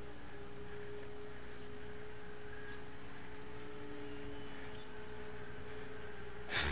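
Steady whine of several small electric RC model planes' motors and propellers flying overhead, heard as a couple of held tones, one drifting slowly lower as the throttle changes. A sharp click near the end.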